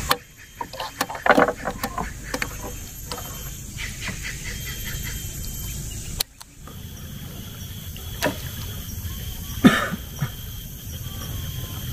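Clicks and knocks of pliers working a fishhook out of a fish's mouth on a wooden boat deck. After a brief break, a few sharp knocks follow, the loudest near the end.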